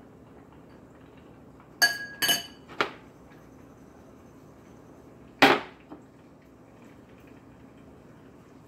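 A metal fork clinking twice against a glass mixing bowl, each clink ringing briefly, followed by a smaller knock and, about halfway through, a louder, duller knock of glass bowls on the stovetop.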